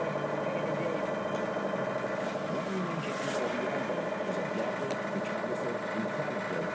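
A steady mechanical hum that does not change, with faint indistinct voices beneath it.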